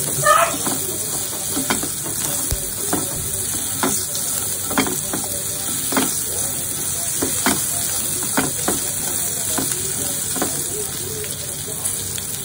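Drumstick pieces sizzling in oil in a non-stick frying pan as they are sautéed, with a spatula stirring them and its strokes knocking and scraping against the pan about once a second over a steady frying hiss.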